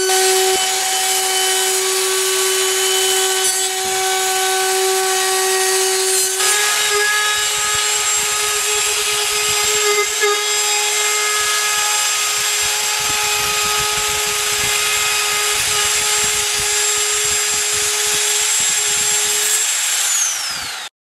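Festool plunge router running at a steady high whine as its bit cuts weatherstrip slots into a wooden window sash. The pitch steps up slightly about six seconds in, and near the end the whine falls as the motor winds down before the sound cuts off.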